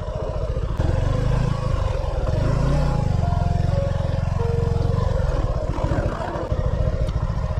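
Motorcycle engine running while riding, with a low pulsing exhaust note that rises and falls briefly about three seconds in.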